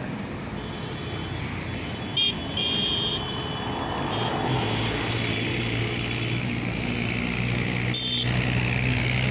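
Highway traffic with motorcycles and a scooter passing close, with short vehicle horn toots about two seconds in and again near the end. A steady engine hum from a nearby vehicle sets in about four seconds in.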